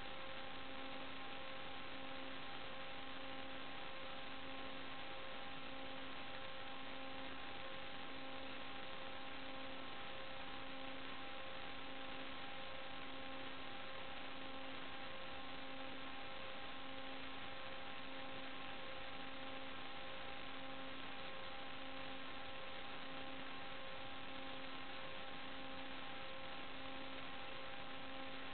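Steady electronic hiss with a low hum that pulses a little more than once a second and several faint steady tones above it: the noise carried on the audio channel of an analog FPV video link, with no flight sound in it.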